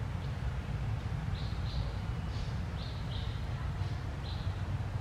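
Short, high chirps recurring irregularly, several a second apart to under half a second, over a steady low rumble.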